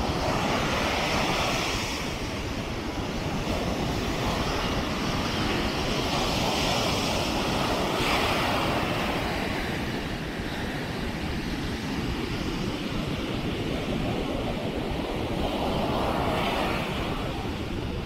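Sea surf breaking and washing up a sandy beach, the hiss of the waves swelling and easing three times, over a steady low rumble of wind on the microphone.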